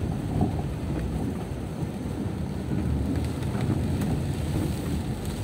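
Car driving through heavy rain, heard from inside the cabin: a steady low rumble of engine and tyres on the wet road, mixed with rain on the windscreen and body.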